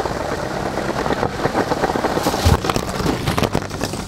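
LEGO train rattling along plastic track. About two and a half seconds in comes a thud with a clatter of plastic pieces, as in a crash or derailment, and more clicks follow.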